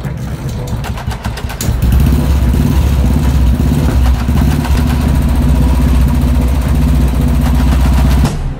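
Motorcycle kick-started, its engine catching a little under two seconds in and then running loudly and steadily with an even pulsing beat, before cutting off suddenly near the end.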